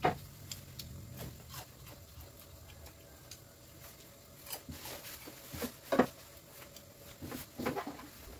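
Kitchen handling sounds: dishes and utensils knocking and clinking on a wooden counter, a handful of separate sharp knocks, the loudest at the start and about six seconds in.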